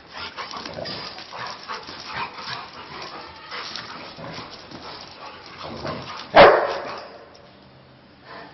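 Pet dog barking once, loud and sharp, about six seconds in, after a stretch of smaller scuffling noises while it is urged to play with a ball.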